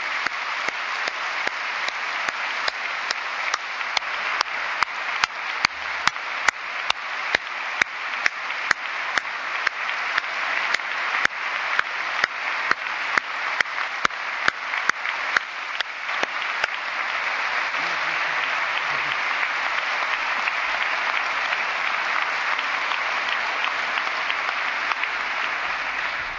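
Large audience applauding steadily. From about four seconds in until about sixteen seconds, loud sharp clicks about twice a second stand out above the applause, and the applause dies away at the very end.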